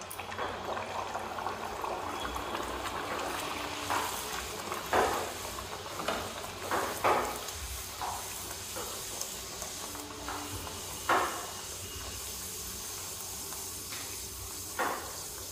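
A pea-stuffed kachori deep-frying in hot oil in a frying pan: a steady sizzle that swells as it goes into the oil. Short sharp clicks come now and then, about eight times, from a wire skimmer touching the pan as it presses and handles the kachori.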